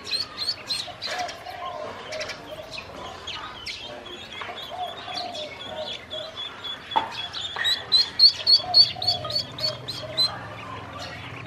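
Ducklings peeping: fast runs of high, evenly repeated peeps at the start and again from about eight to ten seconds in, with softer peeping between.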